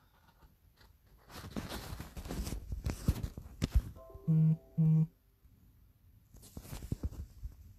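A handheld mobile phone being moved and repositioned: rubbing and knocking on the microphone, then two short identical electronic beeps about half a second apart.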